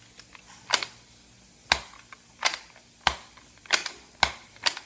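A small spring-plunger Nerf blaster, essentially a reshelled Nerf Jolt, being worked by hand: a series of sharp plastic clicks and snaps, about seven in four seconds, from priming and firing.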